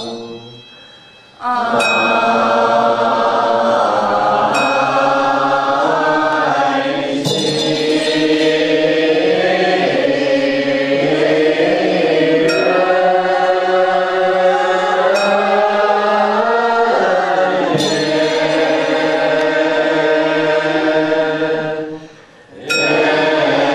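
Group of Buddhist monastics and lay followers chanting a Chinese Buddhist liturgy in unison, in long held phrases that glide in pitch. A small bell rings out every few seconds. The chant comes in after a short pause near the start and breaks briefly again near the end.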